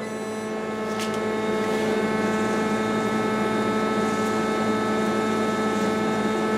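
CNC lathe idling with a steady electrical and hydraulic hum, its spindle stopped after a test cut, with a light click about a second in.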